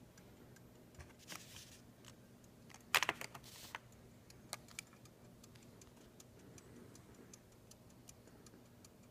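Light handling clicks, then a short metallic clatter about three seconds in, as an antique pocket watch and its sterling silver chain are set down on a scale to be weighed.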